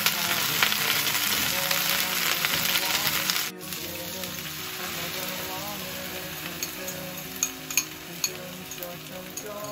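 Leafy greens sizzling loudly as they are stir-fried in a frying pan. About three and a half seconds in, the sizzle drops sharply to a quieter, steady frying sound as beaten egg is poured over them, with a few light ticks near the end.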